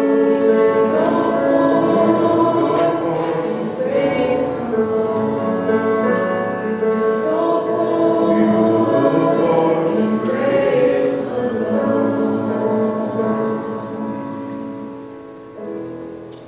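A praise band's worship song: several voices singing together in harmony over guitars and keyboard, the music fading out near the end as the song finishes.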